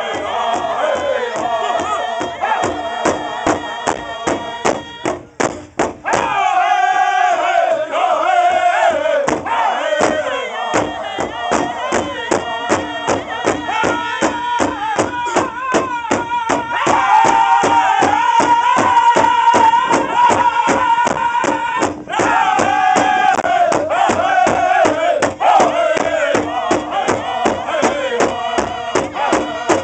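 Powwow drum group singing a contest song: several voices chanting together in high, bending lines over an even beat struck on a large shared drum.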